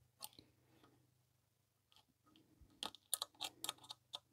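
Small screwdriver prying and scraping at a soldered metal connector box on a TV circuit board, giving faint scattered clicks and then a quick run of sharp clicks and crunchy scrapes in the last second or so as the last solder joint holding the box is worked loose.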